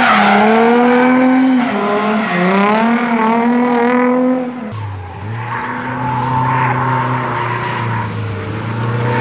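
Drift car engine revving hard, its pitch rising and falling repeatedly as the throttle is worked through the slide, with tires squealing. About halfway through it gives way abruptly to a lower, steadier engine note.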